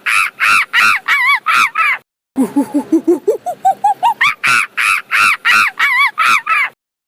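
Monkey calling: a rapid run of hoots climbing steadily in pitch into loud, high, arched calls. The sequence breaks off briefly and plays again, then stops near the end.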